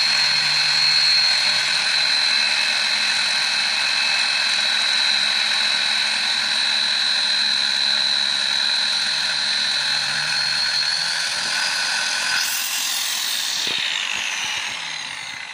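Angle grinder running at full speed with its clamp nut and flange ground against a steel bar, a steady high whine with grinding hiss, to wear away the broken cutting disc jammed between flange and nut. About 12 seconds in it is switched off and the whine falls as it spins down.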